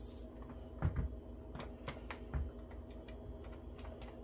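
Handling noise of a stick blender in a plastic container of thick soap batter: a few light clicks and knocks, with two soft low thumps about one second and two and a half seconds in, over a faint steady hum.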